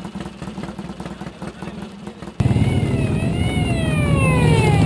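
Motorcycle engines running among a crowd of riders, then a sudden cut about halfway through to motorcycles riding past close by. One engine's pitch rises briefly, then falls steadily as it goes by.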